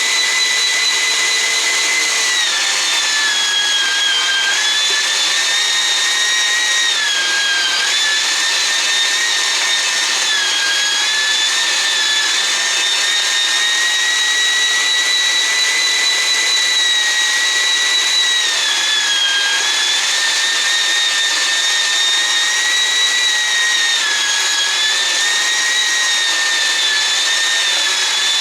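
Keenstar JSMG203 electric meat grinder motor running with a steady high whine, its pitch sagging briefly about five times before recovering.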